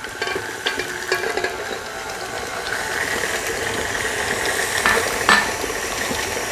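Electric stand mixer running steadily, its beater working creamed margarine as eggs are poured into the steel bowl. There are a few light clicks, and two sharper ones about half a second apart near the end.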